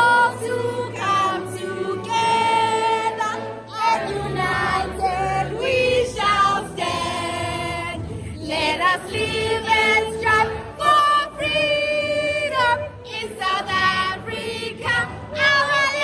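A crowd singing together like a choir, with a woman's voice close by singing along.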